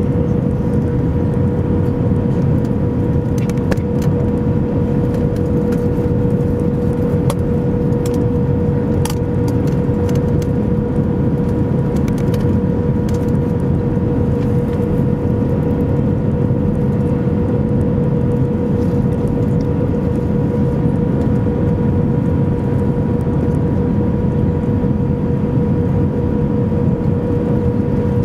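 Airbus A319 cabin noise in flight, heard from inside the cabin: a steady rush of engine and airflow noise with a constant hum held at one pitch. A few faint ticks and rattles come through it.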